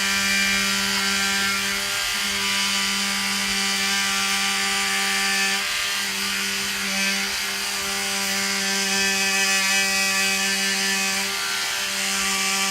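Handheld rapid-release vibration therapy device buzzing steadily against the neck muscles, its hum wavering briefly every few seconds.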